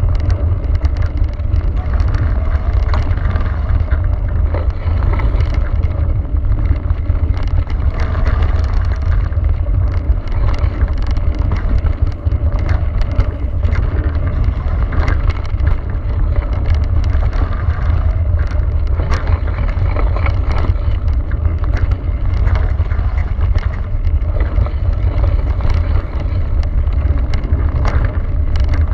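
Cube Stereo mountain bike descending a gravel trail: tyres rolling and crunching over loose stones, with frequent short rattles and knocks from the bike over the rough ground, under heavy wind rumble on the handlebar camera's microphone.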